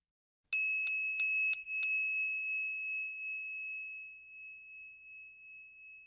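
A bell rung five times in quick succession, about three rings a second, then its single clear tone dies away slowly: a bell sound effect over a 'click the bell' end card.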